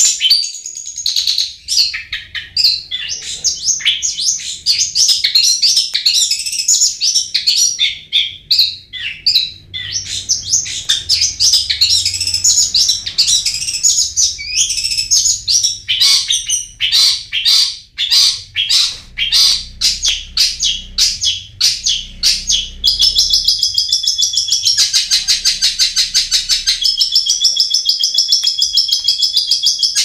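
Long-tailed shrike (cendet) singing: a loud, varied string of quick, high chirps and whistled notes, turning late on into a fast, even chatter of rapidly repeated notes.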